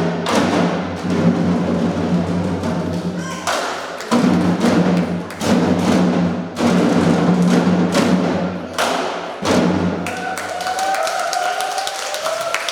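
Drum ensemble playing heavy, booming strikes that stop about ten seconds in, followed by audience clapping and a voice.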